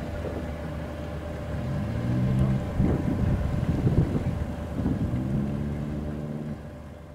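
Boat engine running with a steady hum, its pitch shifting a little a couple of times, with wind buffeting the microphone in the middle and the sound fading away near the end.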